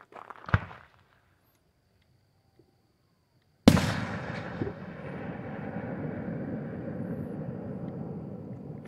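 Aerial firework display: a brief whoosh and thump about half a second in, then about three seconds later one loud bang as a shell bursts, followed by a long rumbling echo that slowly fades.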